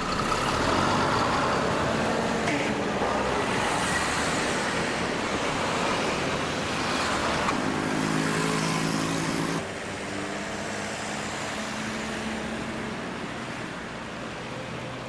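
Road traffic: the steady rush of cars passing on a town street, with an engine hum standing out shortly before the noise drops suddenly about ten seconds in, leaving quieter traffic.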